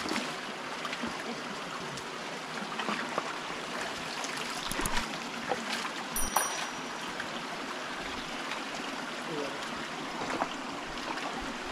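River water flowing in a steady rush, with a few short splashes or knocks about five to six and a half seconds in.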